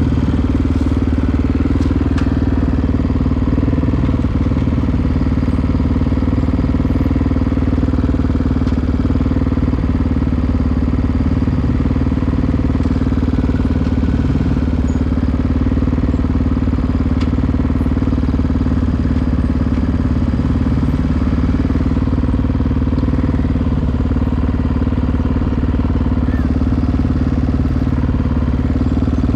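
Honda XR650R dirt bike's big single-cylinder four-stroke engine idling steadily while the bike stands still.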